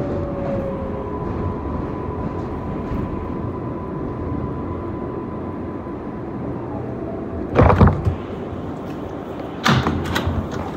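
R142A subway train braking into a station: a steady rumble with a whine from the traction motors that falls in pitch at first, then holds one steady tone. Near the end come two loud clunks about two seconds apart as the train comes to a stop and its doors slide open.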